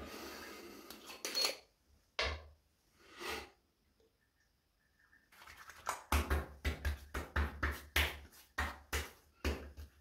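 Hands slapping and patting splash-on aftershave onto a freshly shaved face and neck: a quick run of wet slaps, about four a second, starting past the middle. A brief rustle comes near the start, before a short pause.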